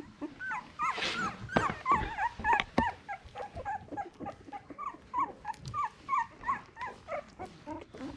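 A litter of two-week-old miniature Australian cattle dog puppies squeaking and whimpering, many short high cries overlapping at several a second. A few sharp knocks sound in the first three seconds.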